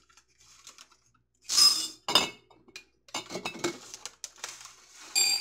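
Glass quart canning jars clinking with a bright ring, three sharp clinks, with a run of small rattling clicks between the second and third as dry lentils are measured into the jars.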